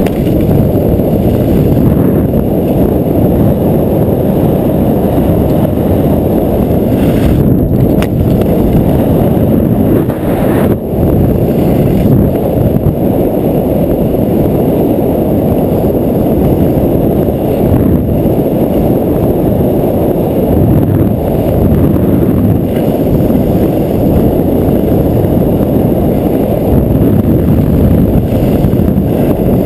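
Steady rushing wind buffeting an action camera's microphone as a skier descends, mixed with skis running over packed groomed snow; a loud low rumble with no break.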